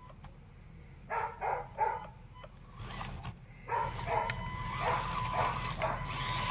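A dog barking: three quick barks about a second in, then another run of barks from the middle on. Under them is a faint steady whine from the RC rock crawler's small electric motor as it is driven.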